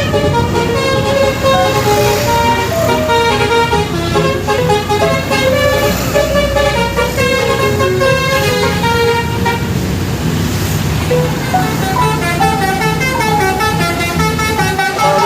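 Telolet horn on an odong-odong mini tourist train playing a tune of quick stepped notes, over the steady running of the vehicle's engine.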